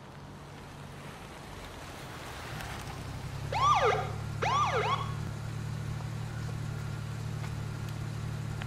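Two short police-car siren whoops about a second apart, each a quick rise and fall in pitch, over a steady low engine hum.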